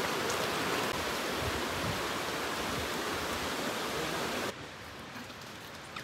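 Shallow rocky stream running over stones: a steady rush of water that cuts off suddenly about four and a half seconds in, leaving a much quieter background.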